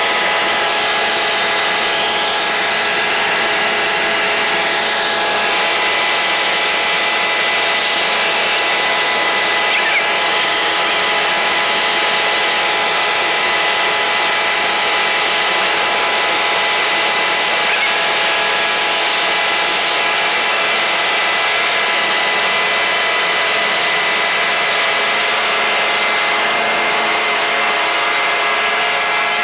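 Helicopter heard from inside the cabin in flight: its engine and rotor make a steady whine of several fixed tones over a loud, constant rushing hiss.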